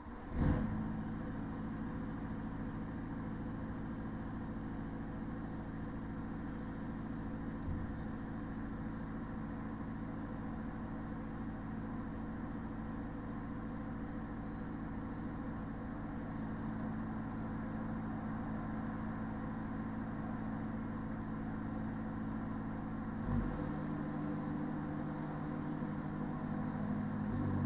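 Parked delivery lorry running its diesel engine and trailer refrigeration unit: a steady low hum of several tones. A sharp knock comes about half a second in, and about 23 seconds in the hum's tones change.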